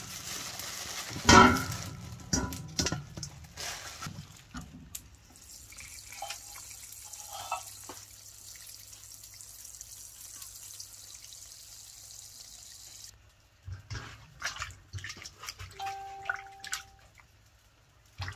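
Water trickling from the tap of a plastic water jug into a steel bowl holding a raw chicken. Near the start the plastic bag rustles and there is a sharp knock. Later come scattered splashes and clicks as the chicken is rubbed clean by hand in the bowl.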